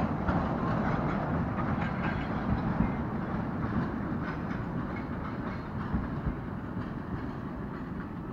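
Narrow-gauge steam train, the Amemiya No. 21 forestry locomotive with its open passenger cars, running past: a steady rumble with a light clatter of wheels on the rails, slowly fading as it moves away.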